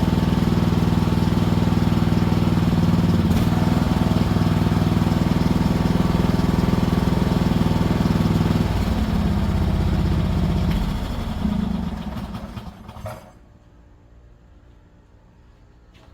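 20 hp mini excavator engine running steadily, then winding down and stopping about thirteen seconds in as it is shut off, with a short knock as it dies.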